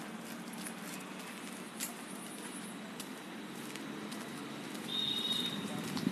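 Footsteps of a person walking on a packed-dirt path, soft scattered steps over steady outdoor ambience. A brief high chirp sounds about five seconds in.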